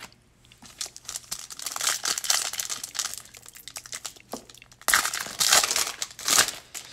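Foil wrapper of a Donruss Optic baseball card pack being torn open and crinkled by hand, crackling on and off, loudest from about five seconds in.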